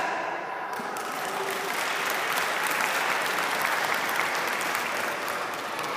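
Audience clapping. The applause swells about a second in and eases off near the end.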